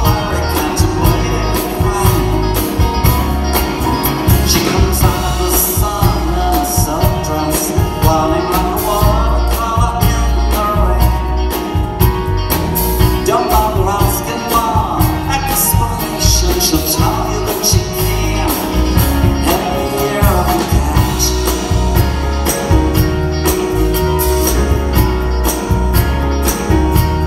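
Live band playing a song with acoustic and electric guitars, keyboards and drums.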